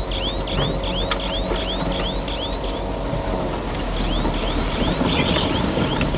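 Crawler bulldozer running as it moves, its steel tracks squealing in a fast regular rhythm of about three short falling squeaks a second over the engine rumble. The squeaks pause briefly a little past the middle, then start again.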